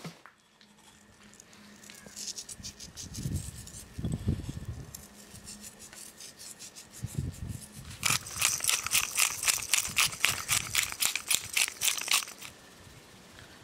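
Hand spice grinder twisted over the meat, grinding whole allspice: a fast rasping crackle, about six strokes a second, that starts about eight seconds in and lasts some four seconds. Softer handling knocks and faint scraping come before it.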